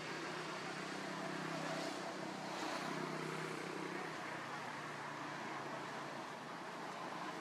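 Steady background noise with a faint low hum through the first half, fading out after about four seconds.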